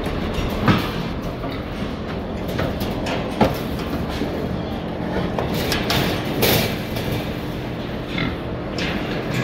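Steel hog-pen gates and rails rattling and clanking as pigs are moved through the pens, with sharp knocks about a second in, about three and a half seconds in and again near six and a half seconds, over a steady hum.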